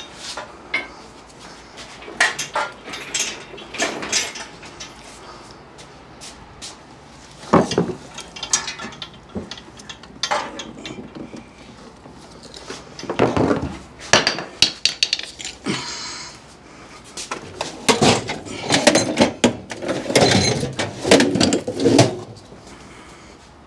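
Hand tools and metal hardware clinking and knocking in an engine bay, in irregular clusters with short pauses between.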